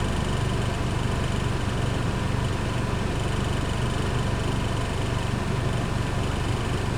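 Steady low engine rumble with a constant hum, like a motor vehicle idling, running evenly without change.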